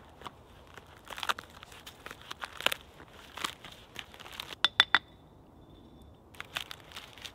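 Bark being scraped and pried off a fallen, rotting log with a fixed-blade knife and pulled away by hand. It crackles and tears in irregular bursts, with a quick run of three sharp snaps about two-thirds in and more scraping after a short pause near the end.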